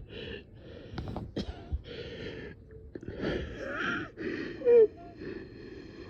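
A person breathing hard and wheezing, short of breath and struggling to take a deep breath: a run of quick, noisy breaths, and about three-quarters of the way through a brief, louder voiced catch of breath.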